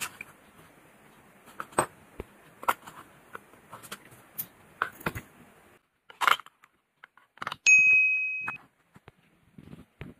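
Small metallic clicks and taps as the case and movement parts of a vintage Seiko watch are handled and dismantled with fingers and tools. About three-quarters of the way through comes a single bright metallic ding that rings for just under a second, the loudest sound here.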